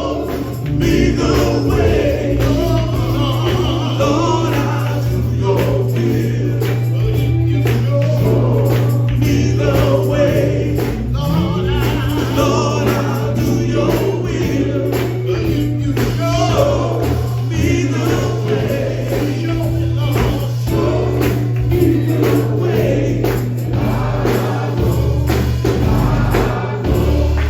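Male gospel group singing in harmony over a live band, with a steady low bass and a regular beat.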